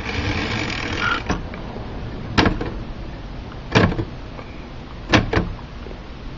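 L.C. Smith manual typewriter being tried out key by key: a rasping mechanical noise for about the first second, then four sharp key strikes, spaced more than a second apart except the last two, which come close together.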